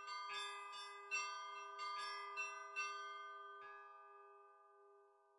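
Church bells ringing: a quick run of about ten strikes in the first three and a half seconds, then the ringing dies away.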